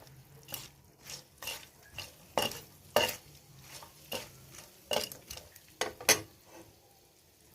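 A metal spoon stirring a tempering of peanuts, dals and curry leaves in hot oil in a pan, mixing in the turmeric just added. It makes irregular sharp scrapes and clicks against the pan, roughly every half second to a second, which stop shortly before the end.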